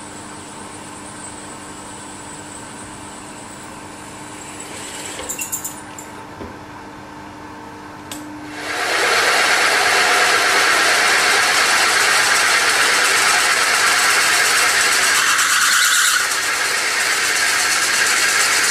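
Machine spindle running steadily with a drill in a cast engine plate, then, about nine seconds in, a 1/2-inch HSS drill bit cutting into the plate with a loud, even cutting noise that dips briefly near the end.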